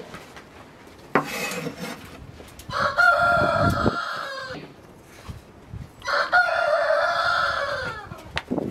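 A rooster crowing twice, each crow about two seconds long and falling away at the end.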